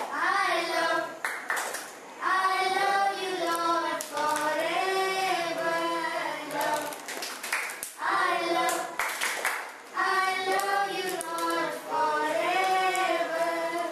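A group of girls singing together in phrases of about two seconds each, with scattered hand claps.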